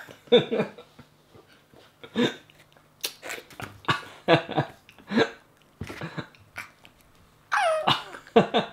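A young girl's wordless vocal reactions to a sharply stinging sour candy powder: a string of short gasps and exclamations. About seven and a half seconds in comes a high squeal that falls in pitch.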